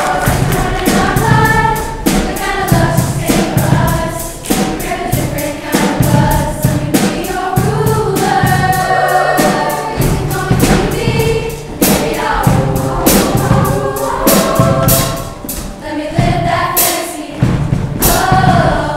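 Show choir singing in harmony over accompaniment with a steady beat.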